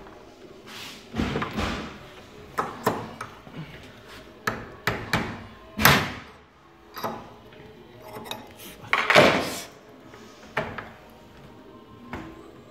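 Irregular metal knocks and clanks: a hammer striking a wrench fitted to the shaft of a brushless skateboard motor to force it apart. The loudest blows land about six and nine seconds in.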